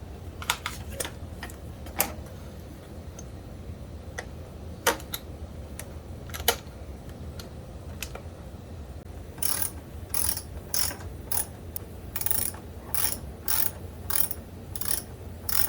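Scattered metallic clicks and clinks of parts and tools being handled, then from about nine seconds in a ratchet wrench clicking steadily, about two clicks a second, as the muffler hanger bolt is run in.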